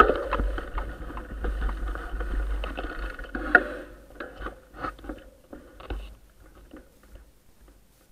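Mountain bike rattling and knocking as it is ridden over a rough grassy track, with a low rumble on the microphone. The knocks thin out about six seconds in and die away to a few faint ticks as the bike comes to a stop.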